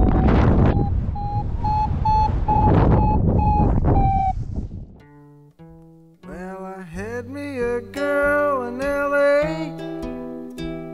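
Paragliding variometer beeping, a rapid string of short tones that rise a little in pitch and then dip, over wind buffeting the microphone. About five seconds in this gives way to a song with plucked guitar and singing.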